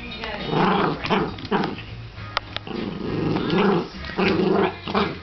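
Dog growling at a piece of sticky paper stuck to it, in a string of short growls one after another: playful mock-attack growling.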